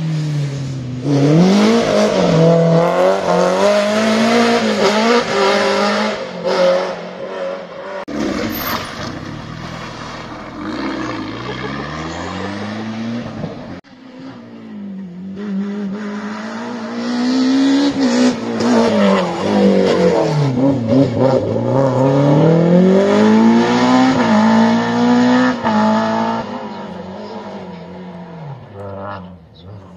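Rally cars passing at full throttle, the engines revving up and dropping back through quick gear changes, in several separate passes.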